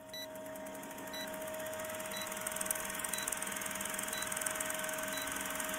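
Film-countdown sound effect: an old movie projector running with a rapid clatter and a steady hum, and a short high beep once each second.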